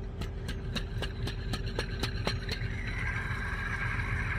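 Old Volvo D13 belt tensioner pulley spun by hand, its bearing ticking about four times a second and then giving a rough whirring about three seconds in: the worn bearing is noisy and vibrates in the hand.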